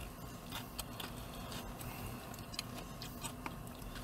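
A few faint, irregular clicks of a spoon and chopsticks against a plastic takeout bowl while eating, over the low steady hum of a car cabin.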